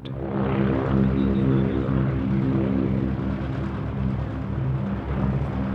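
Propeller airplane's piston engines running, a steady droning hum with a fast low pulsing beneath it.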